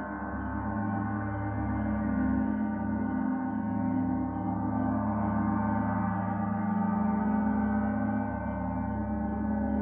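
Gong resonating continuously: a dense, steady wash of many overlapping sustained tones, swelling gently in loudness, with no distinct strikes.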